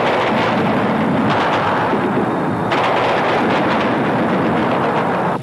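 Heavy gunfire: many shots in quick succession, overlapping into a continuous rattle, cutting off abruptly near the end.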